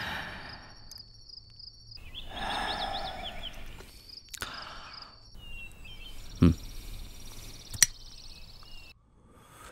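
Rural outdoor ambience: a pulsing high insect drone comes and goes, with a few bird chirps and a breathy rush about two seconds in. A low thump past the middle, then a sharp click near the end as a cigarette lighter is struck.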